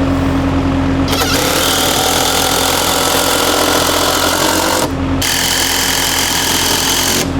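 Skid steer engine running steadily, with a loud hiss over it in two stretches: the first starts about a second in, there is a short break near five seconds, and the second ends just before the close.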